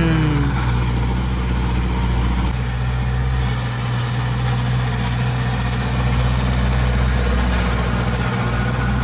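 Tractor engine running steadily while it ploughs a field.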